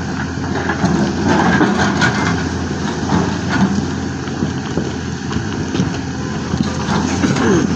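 Excavator's diesel engine running steadily, with scattered crunching and clattering of rock and soil as it digs.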